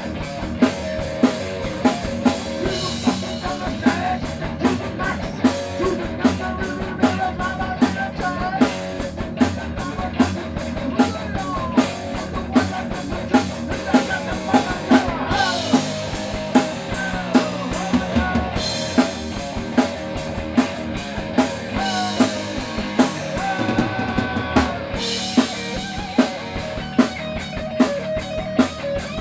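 Rock band playing live: a Gibson electric guitar, bass guitar and drum kit on a punk-rock song with a steady beat. The cymbals drop out twice for a few seconds, around the middle and again later.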